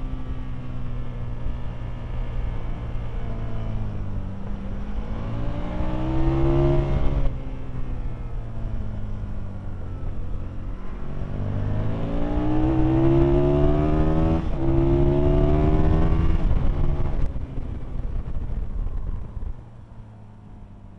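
Aprilia Tuono's V-twin engine heard from on board, revving up through the gears with two upshifts where the pitch drops sharply. Near the end it rolls off the throttle and gets quieter as the bike slows.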